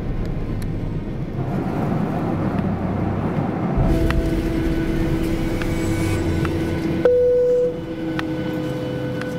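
Jet airliner cabin noise: a steady rumble and rush of engines and air, joined from about 4 seconds in by steady engine whine tones.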